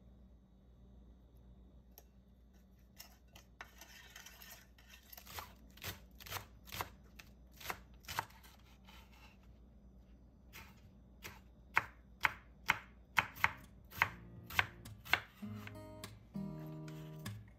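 Kitchen knife chopping on a cutting board in an even rhythm of about two strokes a second. The strokes get louder about ten seconds in. Gentle guitar music comes in near the end.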